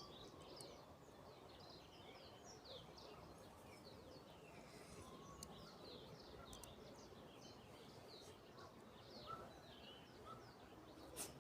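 Near silence with faint birds chirping over low background noise.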